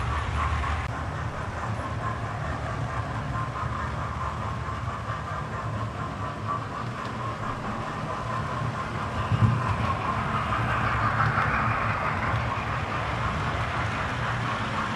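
Model trains running on the layout's track: a steady rumble of wheels on the rails, with one short knock a little past halfway, swelling louder about ten seconds in as a train of coaches comes close.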